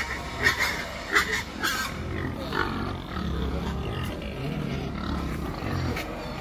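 Domestic pigs squealing and grunting: a few short, sharp squeals in the first two seconds, then low grunts.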